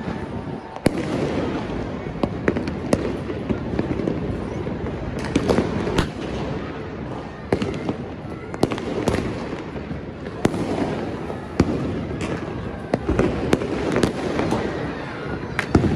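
Fireworks and firecrackers going off all over the city: a continuous din of distant blasts with sharp, nearer bangs every second or so.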